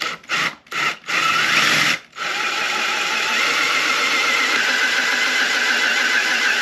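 Power drill with a cobalt bit boring into the motorcycle swingarm's metal. It gives four short trigger bursts, then drills steadily from about two seconds in with a level whine.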